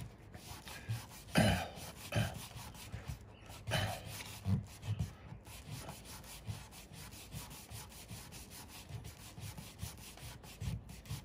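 Small hand sanding block rubbed back and forth over primer on a car door panel in irregular short strokes, feathering the primer layers into one another. The strokes are strongest in the first few seconds and lighter after that.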